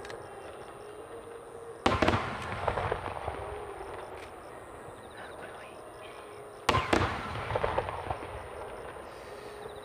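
Aerial fireworks shells bursting: two loud booms about five seconds apart, each followed by a second or so of crackling.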